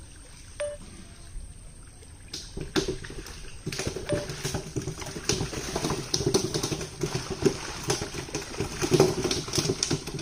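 Hands and legs splashing and sloshing through shallow muddy water as men grope by hand for fish. It is sparse at first, then becomes a continuous, irregular churning from about four seconds in.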